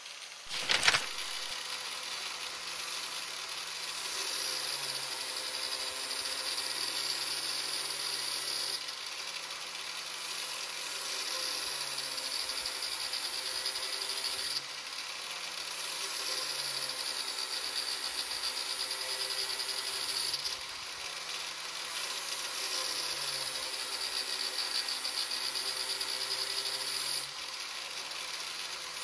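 A Black & Decker angle grinder mounted in a lawnmower blade-sharpener jig runs and grinds a mower blade's edge in three passes of about five seconds each. In each pass the motor's pitch drops under the load while a bright grinding hiss rises. There is a sharp clack about a second in.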